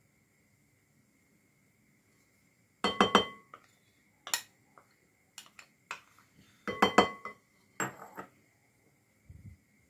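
Glass mixing bowl clinking and knocking as a wooden spoon and a glass container are worked against it. The sharp clinks come in two loud clusters, about three and seven seconds in, with a few single taps between and after.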